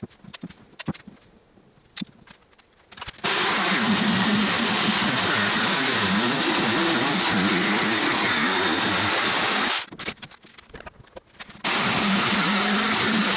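An electric power tool running in two runs, its motor pitch wavering under load, with a short stop and a few clicks and knocks between the runs.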